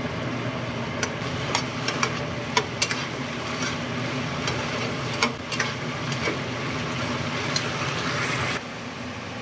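Diced potato and carrot sizzling in a little liquid in a nonstick frying pan, stirred with a metal spatula that clicks and scrapes against the pan several times, over a steady low hum. The sizzling drops away shortly before the end.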